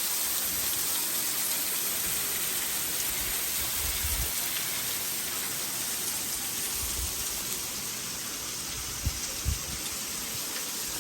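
Steady hiss of a waterfall heard from right behind the falling water, its spray pattering like heavy rain. Two brief low bumps about nine seconds in.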